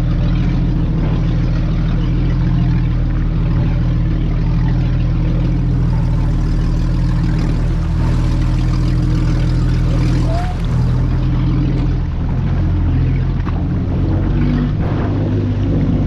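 Vehicle engine running steadily at low revs, with a constant rushing hiss of water or wind over it.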